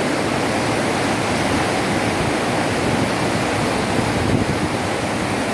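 Steady rush of turbulent floodwater pouring through a tidal sluice gate and churning into foaming white water below; the gate leaf is stuck open and cannot close against the rising tide.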